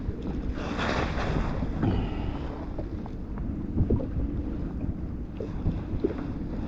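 Wind buffeting the microphone over choppy open water, with waves lapping at a kayak's hull. A louder rush of wind or splashing comes about a second in, and there are a few small knocks.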